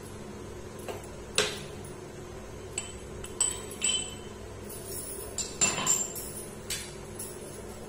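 Metal spoon clinking against a cooking pan (kadai) while khoa for peda is worked: seven or eight sharp clinks with a short ringing, at irregular intervals, the loudest about one and a half seconds in. A steady low hum runs underneath.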